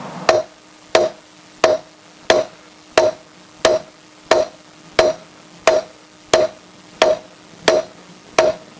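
Hammer striking an old socket used as a drift, driving a new rear wheel bearing into a 1988 Honda CBR1000F wheel hub. Thirteen even, gentle taps, about one and a half a second, each with a short metallic ring.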